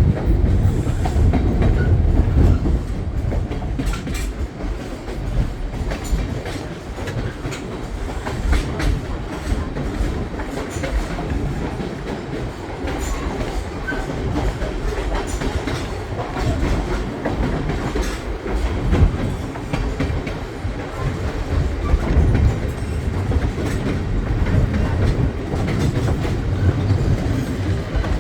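Skunk Train passenger train rolling along the rails: a steady low rumble of the cars with faint repeated clicks from the wheels and track.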